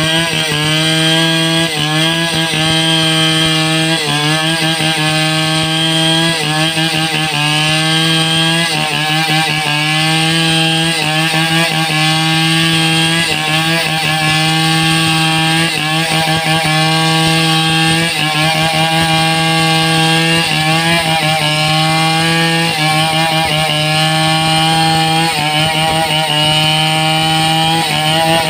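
Chainsaw running at full throttle while cutting through mahogany, its engine note held high and steady, with the pitch dipping briefly every couple of seconds.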